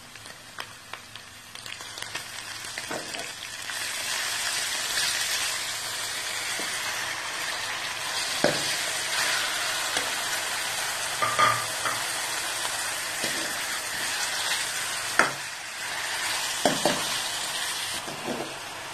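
Pieces of sheep fat frying in hot oil in a metal karahi, the fat beginning to melt: a steady sizzle that builds over the first few seconds. A few sharp clinks of a steel ladle against the pan are heard as the pieces are stirred.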